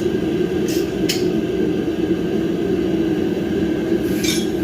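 A steady mechanical drone, with two short clicks about a second in and a brief rattle near the end.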